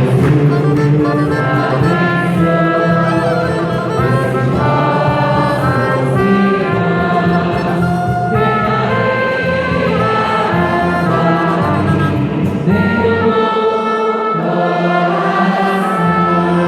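Music: a trumpet playing a melody of held notes over a full instrumental accompaniment.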